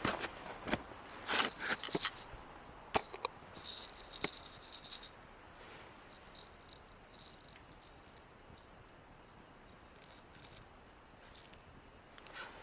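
Small metal objects clinking and rattling as they are handled, in a run of sharp clicks and clinks. One piece rings briefly about four seconds in, and the clinks thin out after that.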